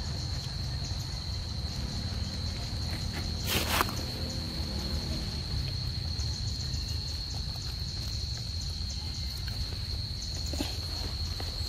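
Steady high-pitched insect drone, with a low rumble underneath. A brief loud rustling noise comes about three and a half seconds in.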